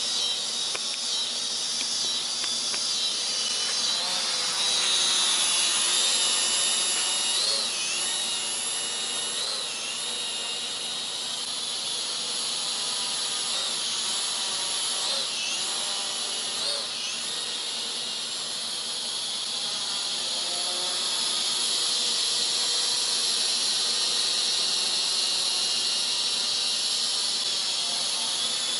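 Small quadcopter drone's electric motors and propellers whining in flight, the high pitch sliding up and down as the throttle changes. It gets louder a few seconds in and again in the later part.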